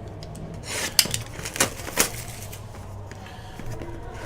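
Trading-card hobby box packaging being handled and opened: a rustle of tearing wrap followed by a few sharp snaps about a second in and again near two seconds, over a low steady hum.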